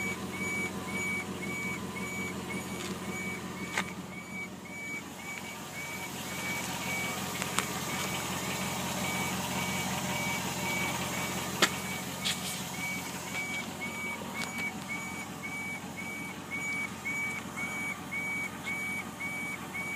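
A quick, even series of short high-pitched beeps, a little more than two a second, from around the fuel tank of a 2002 Jeep Grand Cherokee, over a steady low hum. The beeping comes for a few minutes in the mornings; the owner suspects the fuel pump, and the fix he points to concerns the evaporative emissions leak codes P0442/P0455.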